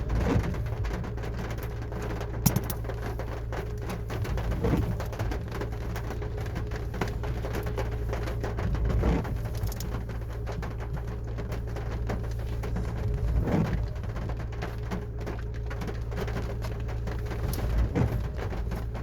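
Rain pattering on a car's roof and windows, heard from inside the cabin over a steady low hum. A low swell recurs about every four and a half seconds.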